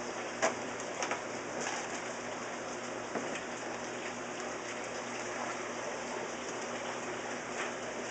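Steady splash and trickle of running water, with a few light taps, the clearest about half a second in.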